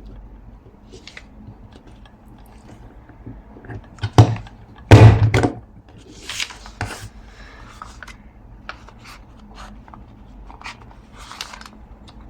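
Hand-pressed craft paper punch clunking through a page: two sharp clunks about four and five seconds in, the second the loudest, followed by paper rustling and small clicks as the page is handled.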